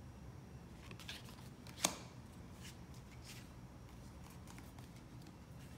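Tarot cards handled by hand: faint rustles of a card being moved, and a sharp tap about two seconds in as it is laid down on the deck.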